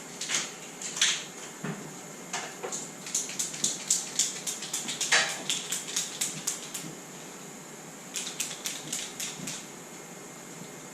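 Runs of sharp, light metallic clicks, about four to five a second: a long run of several seconds and a shorter one near the end, with a few single clicks near the start.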